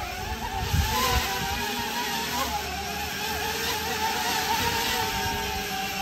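Wing delivery drone's electric rotors whining in flight, a steady hum that wavers slightly in pitch, with a few low thumps about a second in.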